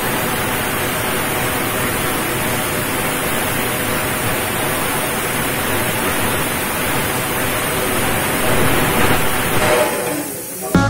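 Handheld air plasma cutter cutting through steel plate: a loud, steady hiss of the arc and its air jet, dropping away near the end.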